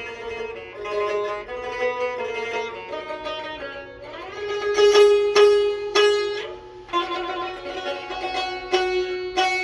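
Azerbaijani tar, freshly fitted with a new skin and new strings, played with a plectrum: a melody of plucked notes, with a louder run of quickly repeated strikes on one note in the middle.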